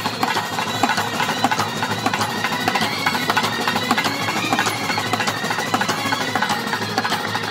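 A Kerala bandset playing: many snare drums, bass drums and a barrel drum beat a fast, dense rhythm, with brass horns sounding over the drums.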